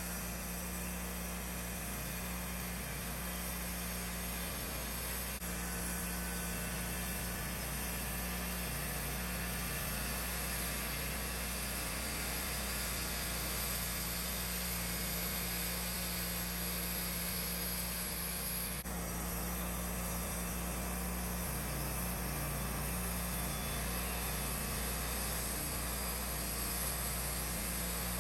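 Wood-Mizer LT15 portable band sawmill running steadily while it saws a board from a pine cant.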